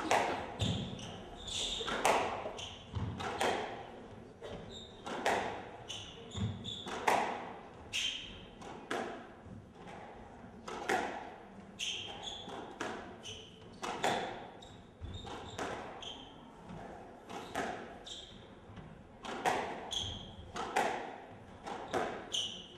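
Squash rally: the ball cracking off rackets and the court walls about once a second, echoing in the enclosed court, with sneakers squeaking briefly on the hardwood floor between shots.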